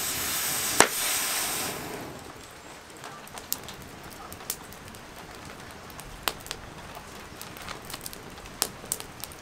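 Wood fire crackling in a fire pit, with scattered sharp pops over a steady faint rain hiss. For the first two seconds a louder hiss of steam from the fire under the mess tin covers it, with one sharp crack about a second in.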